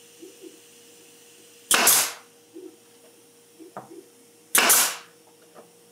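Pneumatic nail gun firing twice, about three seconds apart, driving 30 mm nails into the plywood sides of a glued box. Each shot is a sharp crack that dies away in under half a second, with a few faint clicks and a low steady hum between.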